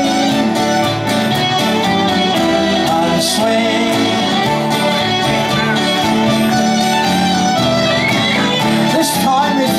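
Live céilidh band playing a dance tune on piano accordion and acoustic guitars.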